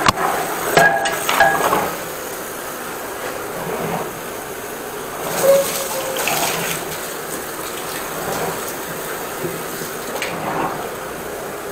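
Water running and gushing steadily, with a few knocks and clatter in the first two seconds.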